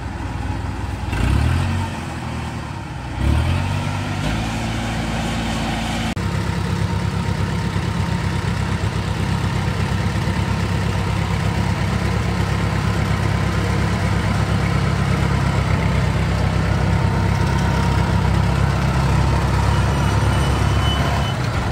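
Engine of a tracked rice-carrier crawler revving up twice in quick bursts, then running steadily under load as it drives up a dirt slope, growing a little louder toward the end.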